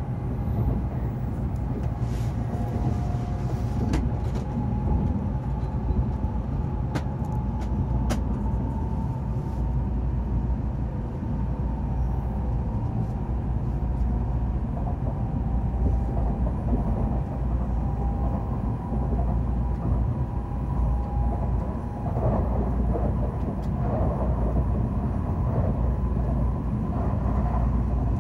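Cabin noise of an N700A Shinkansen bullet train heard from inside the Green car: a steady low rumble of the train running on the line, with a faint whine and a few sharp clicks.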